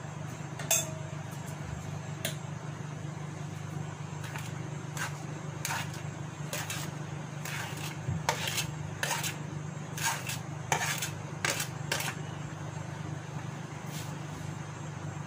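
Steel spoon clinking and scraping on a plate as powdered sugar is scraped off it into a bowl: a string of short taps and scrapes, a few early and most of them in the second half, one brief ringing clink under a second in. A steady low hum runs underneath.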